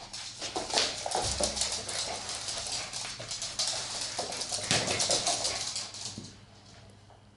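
Two small dogs, a Jack Russell terrier and a Brussels Griffon, scampering in play on a hardwood floor: quick, dense clicking and scrabbling of claws, which dies away about six seconds in.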